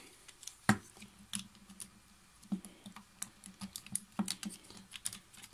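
Scattered irregular clicks and light rattling of the plastic parts of a Transformers Masterpiece Ironhide (MPM-6) figure being handled and folded during its transformation. A sharper click comes near the start and another about four seconds in.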